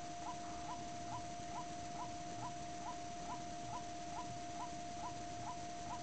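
White-breasted waterhen (kareo) giving its monotonous call: short rising notes repeated evenly, about two a second, over a steady hum.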